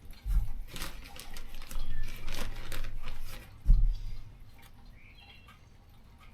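Hands working potting soil over seeds in seed-starting cups: a run of light rustles and clicks with two dull thumps, then quieter about four seconds in.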